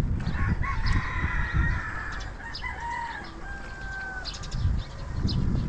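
A rooster crowing: one long, drawn-out crow that starts just after the beginning and ends about four seconds in, over a low background rumble.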